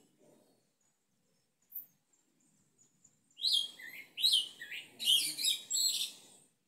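A sabiá-preto, the yellow-legged thrush, singing. After a near-quiet start with one faint high note, it delivers a rapid run of loud, varied, sweeping whistled phrases from about halfway in, lasting about three seconds.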